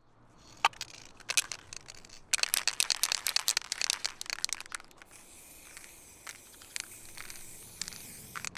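A run of quick, sharp clicks and rattles, sparse at first and densest from about two to five seconds in. After that comes a steadier high hiss with a few more clicks.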